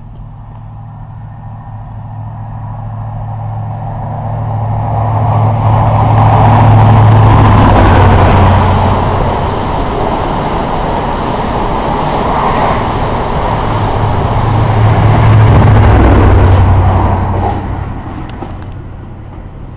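A multi-coach passenger train passing along the platform: a low running hum and rail noise build up, peak twice as it goes by, then die away. While it is closest there are regular clicks of the wheels over rail joints and two brief high squeals.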